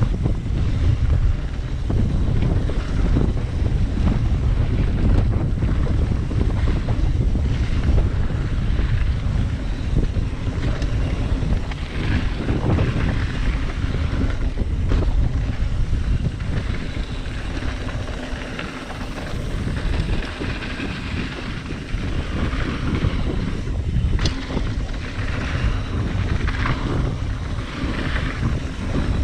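Wind buffeting the microphone during a fast mountain-bike descent, with knobby tyres rolling over dry dirt and loose rock and the bike rattling over bumps; it eases for a few seconds past the middle.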